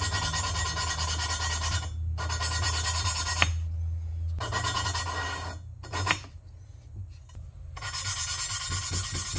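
Valve lapping on a small-block Chevy cylinder head: a valve spun back and forth against its seat with lapping compound, a gritty rasping that stops for short pauses a few times. The grinding compound is cutting the valve and seat to widen their thin contact band.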